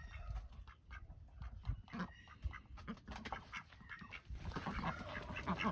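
Cayuga ducks quacking quietly, with scattered short clicks and knocks.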